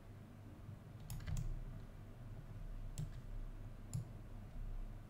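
Computer mouse clicking: three quick clicks about a second in, then single clicks near three and four seconds, over a low steady hum.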